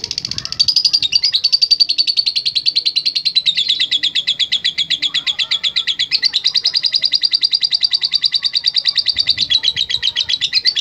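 Lovebird singing a long unbroken 'ngekek' chatter: rapid, evenly repeated shrill notes, roughly ten a second, with the pitch stepping down a little about three and a half seconds in and again near the end.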